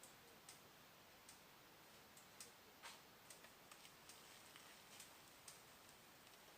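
Near silence: faint steady hiss with about a dozen scattered faint clicks at irregular intervals, the strongest about three seconds in.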